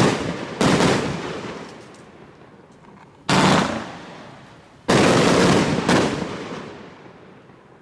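A 49-shot fireworks cake of 30 mm gold willow shells firing its last shots: about five sharp bangs, two close together at the start, then one about three seconds in and two more around five and six seconds, each fading out over a second or so.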